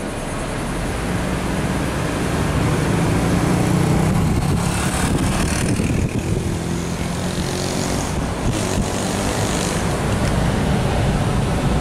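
Steady engine and road noise of a moving vehicle, heard from inside the cab.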